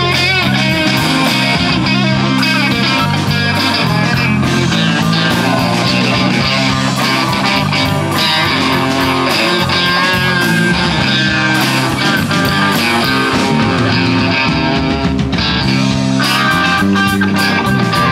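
Live rock band playing through a PA: electric guitars, bass guitar and drum kit.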